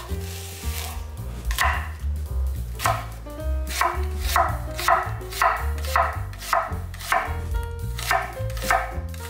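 A chef's knife slicing green onion and then onion, each cut striking the wooden cutting board in a steady rhythm that quickens to about three cuts a second in the second half. Low background music plays underneath.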